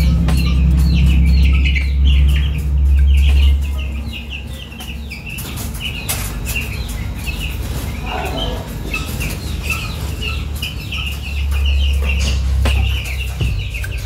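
A large flock of young broiler chicks peeping continuously: many short, high, falling cheeps overlapping without pause. A low rumble sits under them for the first few seconds and again near the end.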